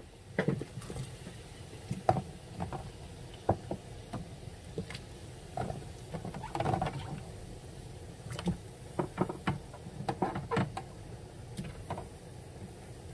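Irregular light clicks and knocks of hands working with food and kitchenware, a dozen or so scattered at uneven intervals, with a brief denser cluster in the middle.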